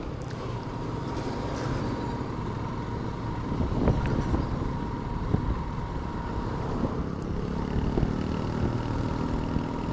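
Motorcycle engine and road noise while riding at a steady pace, with a faint steady whine throughout.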